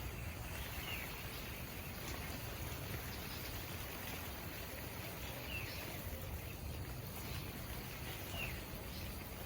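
Rural outdoor ambience: a steady low rumble under a soft background hiss, with three brief faint high chirps spread through it.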